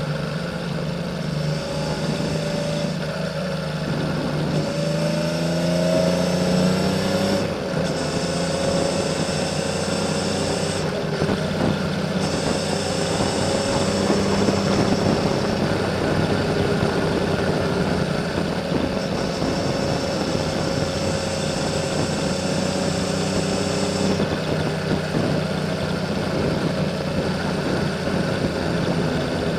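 Honda CBX 1000's inline six-cylinder engine through a Kerker 6-into-2 exhaust, running steadily under light throttle as the bike climbs at an even pace. The engine note rises and falls briefly about five to seven seconds in, then holds steady.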